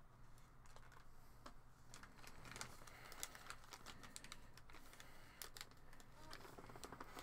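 Faint, scattered light clicks and rustles of a plastic bag and small plastic miniatures being handled on a tabletop, the ticks coming thickest in the middle.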